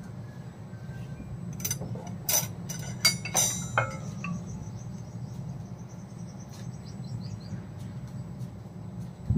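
A metal skewer clinks against a steel tray several times, each strike ringing briefly, about two to four seconds in, over a steady low hum.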